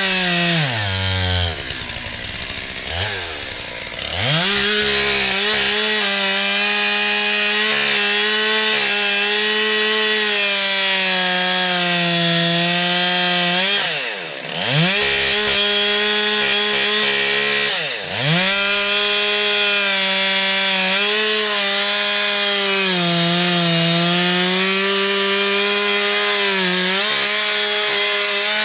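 Stihl MS 441 two-stroke chainsaw running at full throttle, cutting through a log thicker than its bar is long. Its revs drop and pick back up several times: between about two and four seconds in, and again around fourteen and eighteen seconds.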